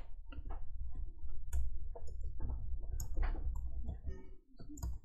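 Typing on a computer keyboard: a quick, uneven run of key clicks over a steady low hum.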